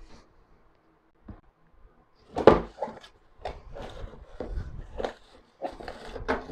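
Cardboard product box being handled on a table: a light knock a little over a second in, a louder thump about two and a half seconds in, then a run of short scrapes, knocks and rustles as the bubble-wrapped contents are slid out.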